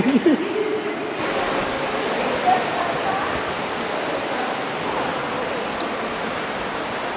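Steady rushing noise of a zip-line ride that starts suddenly about a second in: air rushing past the microphone and the trolley running along the cable. A brief voice is heard at the very start.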